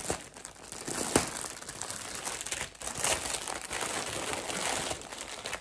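Plastic packaging around a pack of yarn skeins crinkling continuously as it is handled, with a few sharper snaps.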